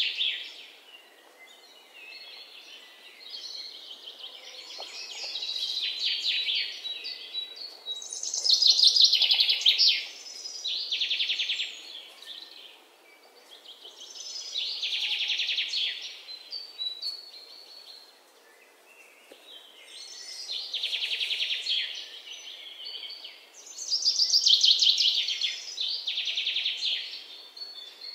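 Bird calls: bursts of rapid, high-pitched chirping trills every few seconds.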